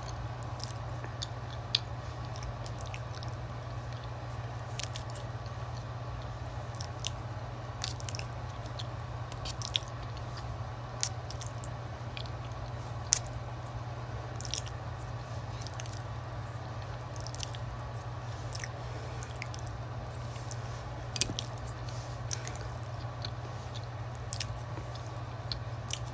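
Close-up eating sounds: wet, squishy chewing and biting made of many irregular sharp clicks, a few of them louder, over a steady low hum.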